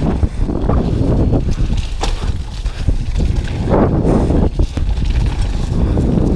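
Wind buffeting a GoPro's microphone on a downhill mountain bike, with the tyres running over a loose dirt trail and the bike clattering and knocking over bumps.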